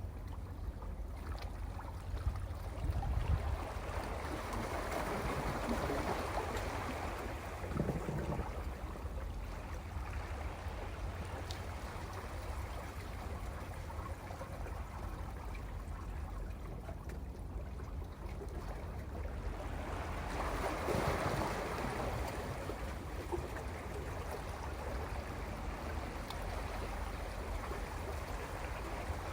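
Sea waves washing against a rocky shore, surging twice and draining away in between, over a steady low rumble.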